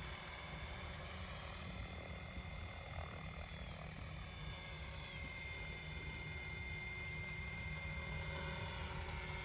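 Electric XL Power 550 RC helicopter in a scale MD500 fuselage flying at a distance: a steady high whine from the motor and rotors over a low rumble.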